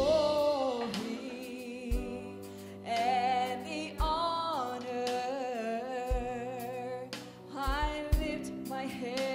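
Live gospel worship music: a woman singing long held notes with vibrato over a band of piano, bass guitar and drum kit, with slow kick-drum beats about every two seconds.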